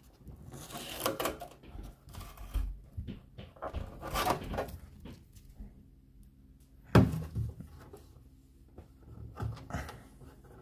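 Rustling and peeling as protective stickers and packaging are pulled off a new fridge-freezer's plastic fittings, with one sharp knock about seven seconds in.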